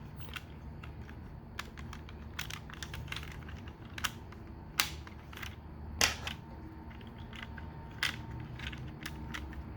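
Scattered light clicks and taps of hard plastic toy parts being handled: the laser pistol accessories of a Transformers Masterpiece Ratchet figure being pushed into place. Under them runs a steady low hum.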